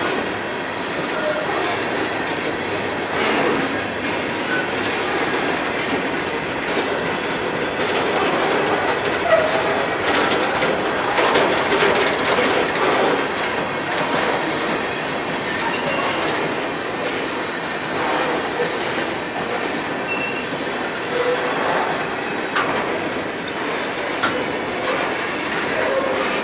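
Coal train of aluminum coal gondolas rolling past close by: a steady rumble of steel wheels on rail, with clickety-clack as the trucks cross the rail joints and short, scattered wheel squeals.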